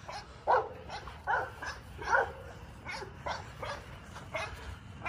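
American Bully puppies barking in short, high yaps, about two a second.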